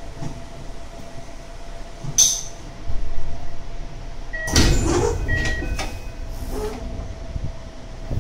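Pneumatic sliding doors of a Tokyo Metro 8000 series train working, heard over the steady hum of the stopped train's equipment. A short sharp noise comes about two seconds in, then a loud bang with a burst of noise about halfway through: the loud 'bomb door' slam these doors are known for.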